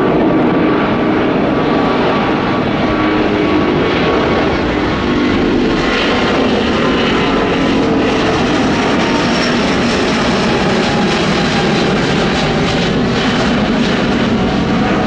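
Airbus A350-941's Rolls-Royce Trent XWB turbofan engines at takeoff thrust as the airliner climbs out close overhead: a loud, steady rushing noise.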